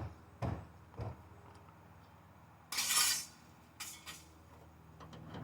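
Metal parts of an electric motor being handled during a teardown: three sharp knocks and clinks in the first second, a short rasping scrape about three seconds in, then a few light clinks.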